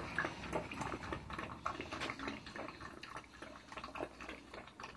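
Pug lapping water from a small cup on the floor: a quick, irregular run of wet laps, several a second.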